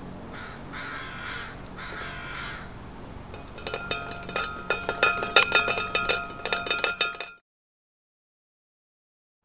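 Metal tray feeder rattling and clinking fast and irregularly, with ringing metallic notes, as an eastern gray squirrel rummages through the seed in it. It cuts off suddenly about seven seconds in. Before that come three short, rough, hissy sounds.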